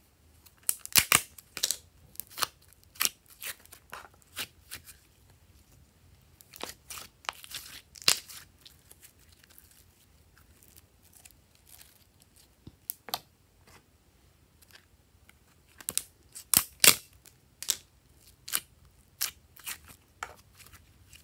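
Pink slime squeezed out of plastic tubs and stretched by hand, giving clusters of sharp crackles and pops with quiet gaps between.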